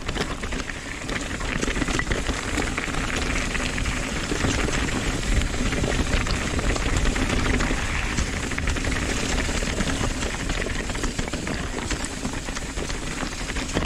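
Nukeproof Dissent 290RS downhill mountain bike rolling over a loose, rocky trail: a steady crunch and rattle of tyres on stones, dense with small clicks, over a constant low rumble.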